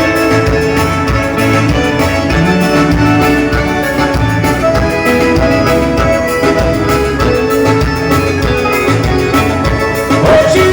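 Forró band playing an instrumental passage, accordion leading over bass and a steady beat.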